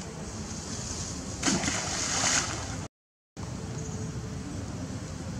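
Steady outdoor background noise with a louder noisy burst lasting about a second, then a half-second dropout to dead silence at an edit before the same background noise returns.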